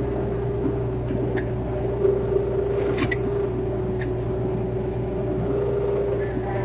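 Excavator's diesel engine running steadily, a constant whine over a low rumble, with a few sharp metallic clinks, the loudest about three seconds in.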